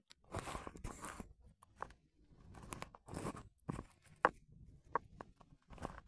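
A tabby cat eating close to the microphone: irregular bursts of chewing and crunching with scattered sharp clicks.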